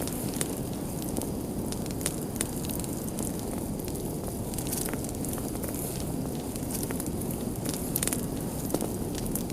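Wood fire burning with a steady low rumble and frequent sharp crackles and pops.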